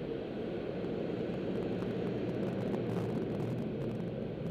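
Steady low rumble heard from inside a car's cabin, with a few faint ticks about halfway through.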